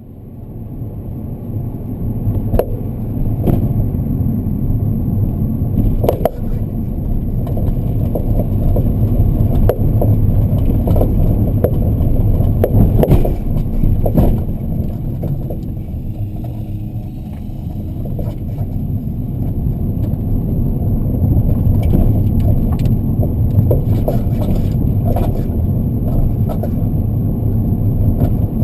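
Car driving with a steady low road rumble, broken by irregular sharp knocks from the rear left BC Racing BR Type RA coilover. The knocking is the sign of a failed shock cartridge in that coilover.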